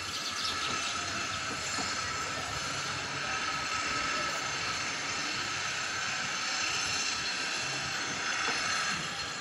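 Steady outdoor background noise: an even hiss carrying a few faint, steady high tones, with no single event standing out.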